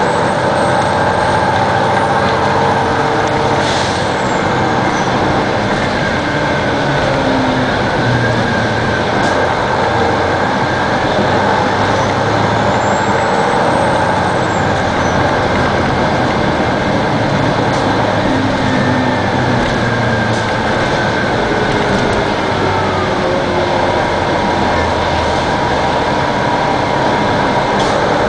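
2002 Neoplan AN-460 articulated bus running under way on its Detroit Diesel Series 60 inline-six diesel and Allison B500R automatic transmission. The engine and drivetrain pitch rises and falls several times as it accelerates and shifts, with a brief hiss about four seconds in.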